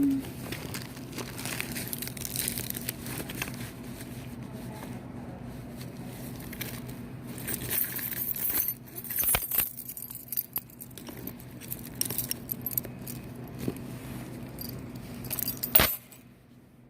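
Indoor public-space background: a steady low hum with scattered bright metallic clinks and jingles. A sharp knock comes about a second before the end, after which it goes quieter.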